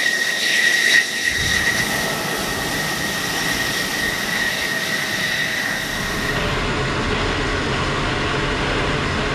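F-16 fighter jet's engine running on the runway: a steady high whine over a rushing noise. A deeper rumble comes in about a second in and grows stronger about six seconds in.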